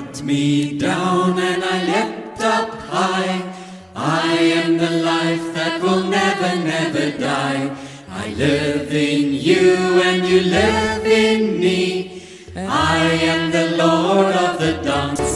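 Church band singers singing a four-line hymn verse with the band playing, with a short break between each line.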